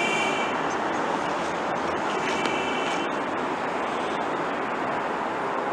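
Steady running noise of an elevated New York City subway train on the steel structure, with a brief high wheel squeal at the start and again about two seconds in.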